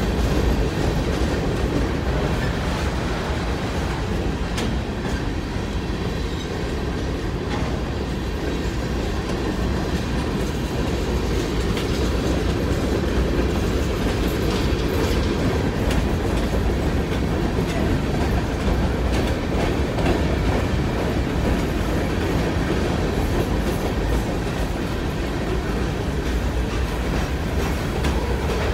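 BNSF coal train's steel hopper cars rolling past, a steady rumble of wheels on rail with occasional clicks as the wheels pass over the track.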